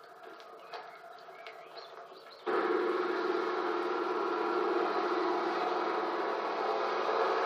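Faint bird chirps, then, about two and a half seconds in, a tractor engine cuts in abruptly and runs loudly and steadily as the tractor drives along.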